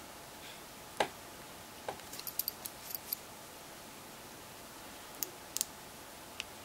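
Scattered small plastic clicks and taps from handling an LG G2x handset, with repeated presses of its faulty power button, which has given out and does not turn the phone on. The loudest click comes about a second in, and a quick run of small high clicks follows about a second later.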